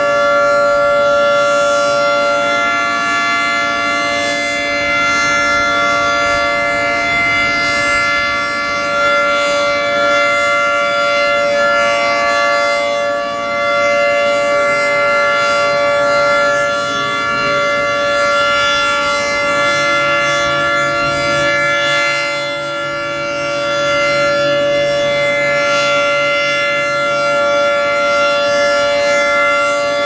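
Federal Signal 3T22 three-tone outdoor warning siren sounding a steady alert chord during a test. The pitch holds level, and the loudness swells and dips slightly every several seconds as the rotating horns sweep past.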